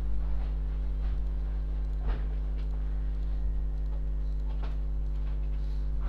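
A steady low hum with several even tones stacked above it, and a few faint scattered clicks, the clearest about two seconds in.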